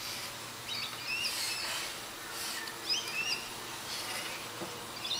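Small birds chirping in the background: several short, high calls that slide up and down in pitch, most of them in the first three seconds.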